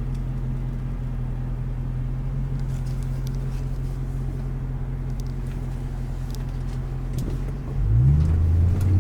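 BMW E9X M3's V8 engine running at a steady low speed, then revving up near the end as the car accelerates.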